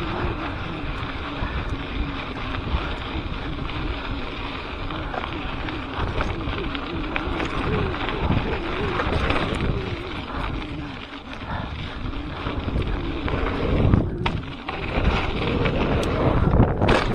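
Wind buffeting an action camera's microphone on a moving mountain bike, over a steady rumble with scattered knocks and rattles from the bike rolling along a dirt trail.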